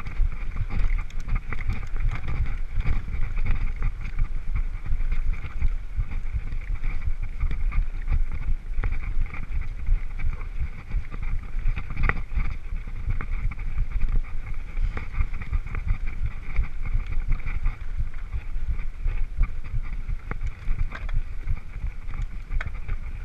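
Mountain bike riding fast over a rough, stony dirt track: wind buffeting the camera microphone in a steady low rumble, with the bike and tyres rattling over stones and occasional sharp knocks.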